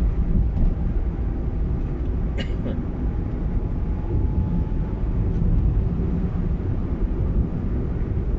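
A car driving along a road, a steady low rumble of engine and road noise, with one short click about two and a half seconds in.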